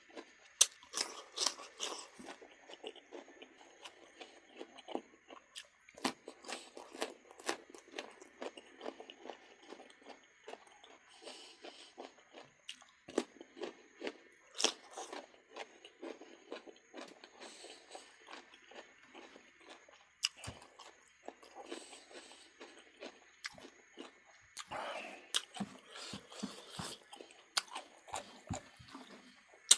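Close-miked eating: a person chewing and biting into duck meat, with irregular sharp crunchy clicks and wet mouth sounds.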